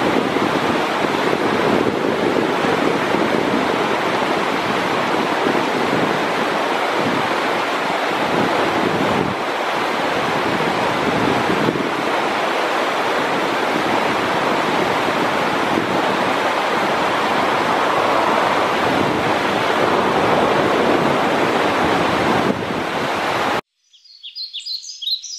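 Loud, steady rushing noise with no pitch, which stops abruptly near the end. It gives way to a small bird's quick, high chirps, repeated several times.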